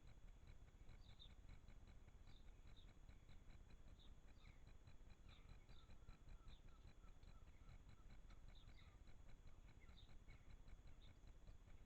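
Near silence: faint bird chirps now and then over a steady faint ticking, about four ticks a second.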